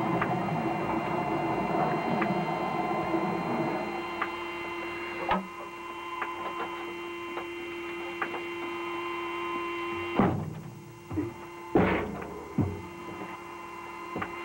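A steady electrical hum with a faint mechanical whir, broken by scattered clicks and sharp knocks, the loudest two about ten and twelve seconds in.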